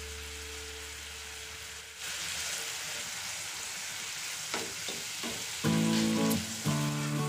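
Tomato-sauce masala sizzling in a frying pan while it is stirred with a spatula; the sizzle grows louder about two seconds in. Background music with held notes comes in near the end.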